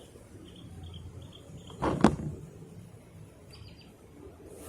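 Outdoor nature ambience: short high chirps repeating about twice a second, over a low steady background. About two seconds in, a brief louder knock-like noise stands out above it.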